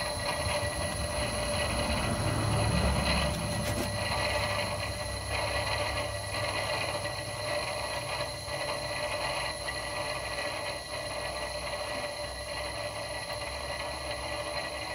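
Dual ball-bearing turbocharger on a Mitsubishi 4G63, its compressor wheel spinning with a steady high whine over a low rumble.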